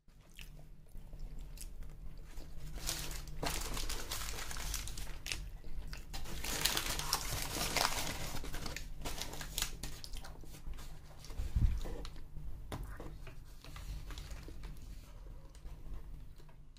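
Paper napkin crinkling and rustling as it is handled. It is a dense crackle of many small clicks, busiest in the middle, with a single low bump about two-thirds of the way through.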